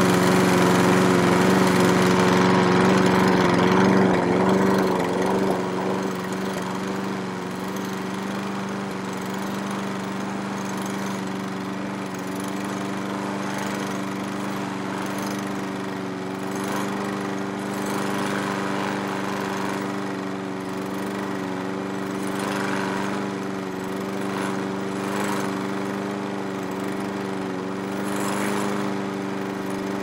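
Lawn mower engine running steadily, louder for the first five seconds or so, then a little quieter with small swells in the cutting noise.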